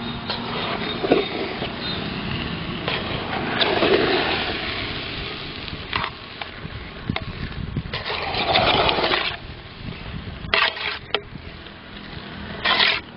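Steel slotted ladle stirring and scraping cooked biryani rice against the side of an aluminium pot, in several rustling scrapes, the loudest about four seconds and eight to nine seconds in, over a steady low rumble.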